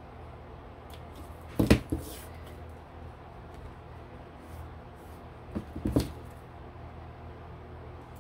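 Large scissors handled on a craft table while trimming lace on a paper card: two short clusters of clicks and knocks, about two seconds in and again about six seconds in, over a low steady room hum.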